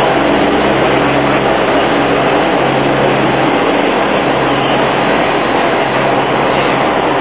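An engine running steadily close by, a continuous low hum under a dense rumble with no change in speed.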